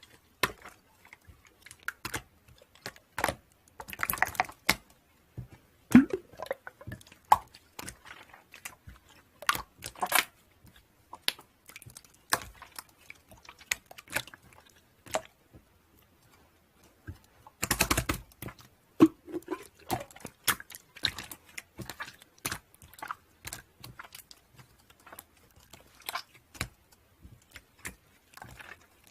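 Close, irregular crunching and clicking sounds, denser in a few short clusters.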